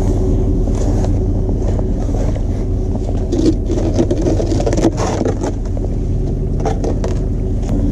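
A vehicle engine idling steadily, with a few clunks and scrapes of hard plastic bins being handled and set down.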